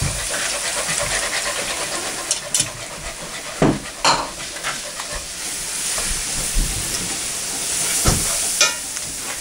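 Milk pouring into a hot flour roux in a cast iron skillet, sizzling steadily while it is stirred for gravy. A utensil knocks against the pan a few times.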